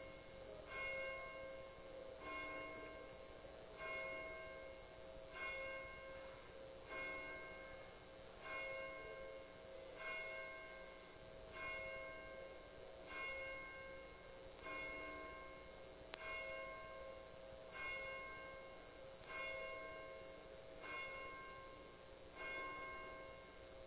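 A single church bell tolling at a steady pace, one stroke about every second and a half, each stroke ringing on and fading before the next.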